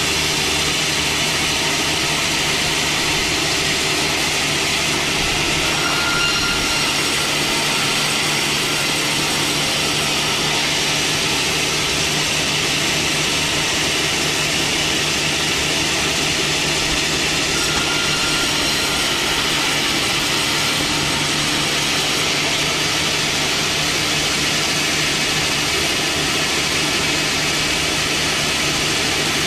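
Woodworking power saw running steadily with a constant motor hum and a broad hiss.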